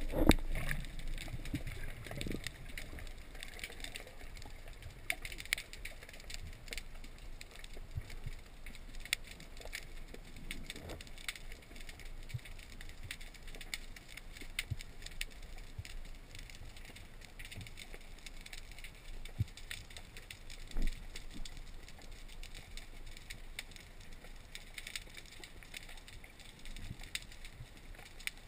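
Underwater ambience picked up through a camera housing on a rocky seabed: a steady crackle of many sharp clicks, with a few dull low thumps, the loudest near the start and one about three-quarters of the way through.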